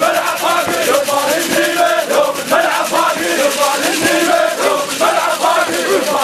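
A crowd of men chanting and shouting together, loud and without a break: an Iraqi hosa, the rhythmic war chant of men honouring a fallen fighter.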